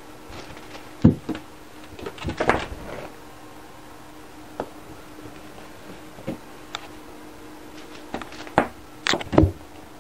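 Cat's paws thumping and scrabbling on a wooden floor as it jumps and pounces at a feather wand toy. There are sharp knocks about a second in, a short flurry a second later, and a louder cluster of thumps near the end.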